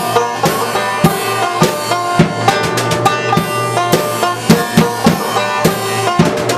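Banjo and drum kit playing together: quick plucked banjo notes over a rock drum beat with bass drum and cymbal hits.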